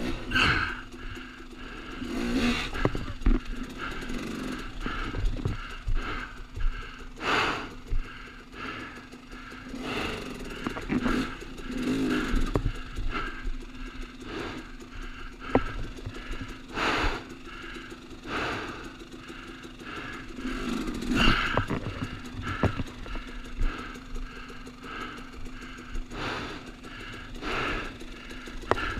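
KTM enduro dirt bike's engine running at a steady idle while the bike is worked through boulders, with irregular louder bursts and clattering every few seconds.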